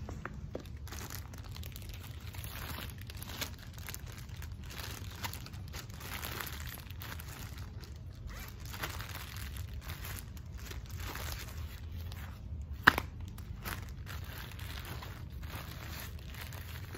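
Plastic zip-top bags and plastic shopping bags crinkling and rustling in irregular bursts as filled bags are squeezed of air, sealed and stuffed into a fabric sandbag. One sharp snap stands out late on.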